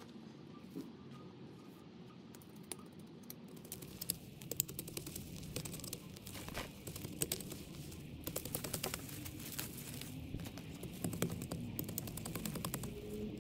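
Yard work in a flower bed: a dense, irregular run of crackling clicks, starting about three and a half seconds in, over a low rumble.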